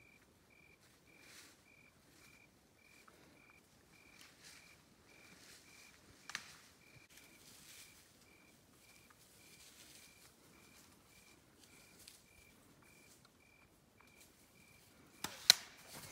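Quiet woodland: a faint high chirp repeating evenly about twice a second, with light rustling of brush. Near the end, two sharp snaps a fraction of a second apart, the loudest sound.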